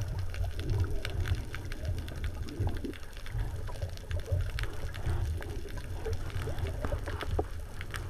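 Underwater sound through a camera's housing: a low, fluttering rumble of moving water with sharp clicks and crackles scattered throughout.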